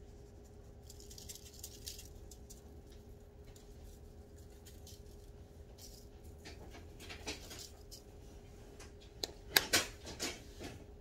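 Granulated garlic shaken from a spice container onto okra on a foil-lined tray, a soft, irregular patter and rattle of granules. A few sharp clicks and knocks near the end are the loudest sounds, with a faint steady hum underneath.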